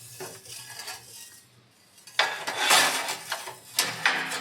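Pipe roller bending a strip of flat iron: metal grinding and clinking as the bar is forced through the rollers. It starts about halfway in and comes in uneven surges.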